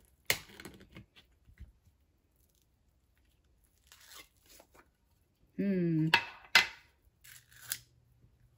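Key-opened metal meat tin: a sharp snap and scrape as the rolled tear strip comes free just after the start, then scattered clicks and knocks of the can and a metal fork as the loaf is pushed out.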